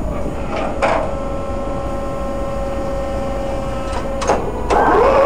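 Paxman 6YJXL diesel engine of a Class 14 diesel-hydraulic locomotive running with a steady whine, marked by a few sharp clicks; about four and a half seconds in the whine stops and the engine gets louder, its pitch wavering.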